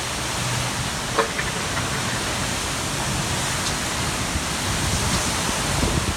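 Hurricane wind and rain rushing in a loud, steady roar, with a brief sharp knock about a second in.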